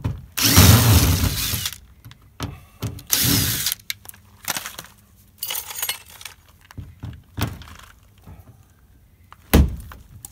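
Cordless drill running in two short bursts as it backs out a screw at the base of aluminum RV siding corner trim. Then scattered clicks, scrapes and knocks as the corner strip is worked loose by hand, with one sharp thump near the end.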